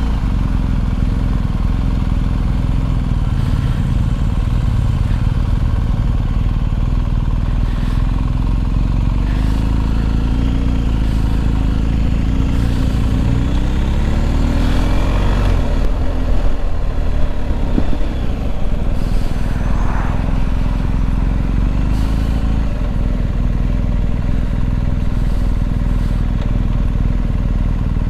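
BMW R1250 GS motorcycle engine running steadily while riding. Its note shifts and wavers for a few seconds about halfway through, then settles back to a steady run.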